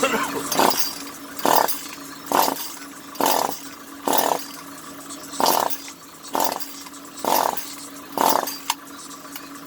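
Echo CS-400 two-stroke chainsaw being pull-started over and over, about one pull a second, each pull a short whirr of the recoil starter cranking the engine, which never catches: the saw will not start.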